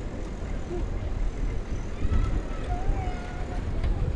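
Wind buffeting the microphone and rolling noise from a bicycle ride, a steady low rumble throughout, with a faint voice of someone nearby in the middle.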